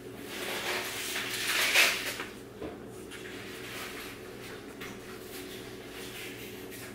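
Rustling and handling noise from cross-stitch supplies (plastic bags and paper) on a table, loudest just before two seconds in, then a quiet room with a low steady hum.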